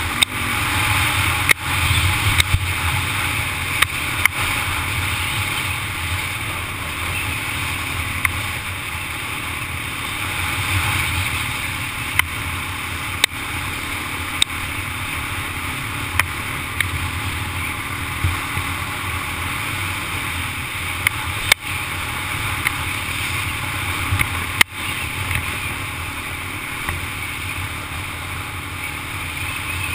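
Honda ATV engine running steadily while riding, mixed with wind noise, with a dozen or so sharp knocks scattered through it.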